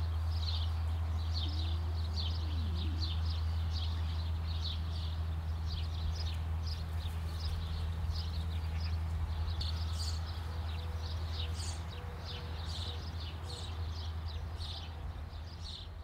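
Outdoor rural ambience: a steady low hum under a quick run of short, high chirps or ticks, about two or three a second, fading toward the end.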